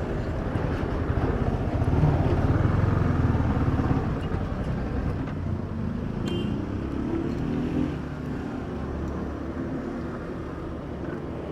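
Motorcycle engine running as it is ridden, easing off about four seconds in and running quieter after about eight seconds. It runs without the tappet clatter, the loose tappet nuts having been tightened.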